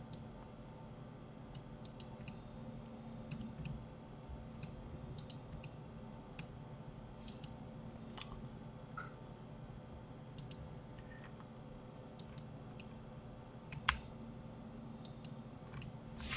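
Faint, scattered clicks of a computer mouse and keyboard keys, single and in quick pairs, over a low steady hum. One louder click comes near the end.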